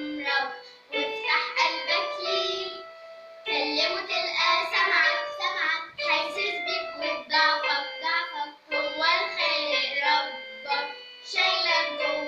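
A young girl singing an Arabic song in short sung phrases with held notes, over instrumental accompaniment.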